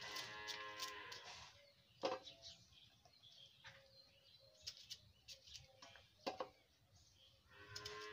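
Cow mooing faintly, one long steady call at the start and another beginning near the end, with a few short knife clicks in between as badhar fruit is cut and the seed parts are removed.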